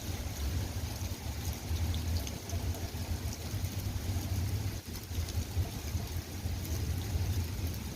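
Steady rain falling, with scattered drops ticking, over a steady low rumble.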